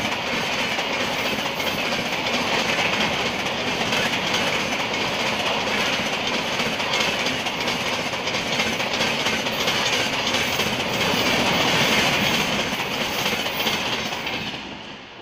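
A train of LHB passenger coaches passing close by at speed, around 130 km/h: a steady loud rush of wheels on rail with wheel clatter. It drops away near the end as the last coach, a power car, goes by.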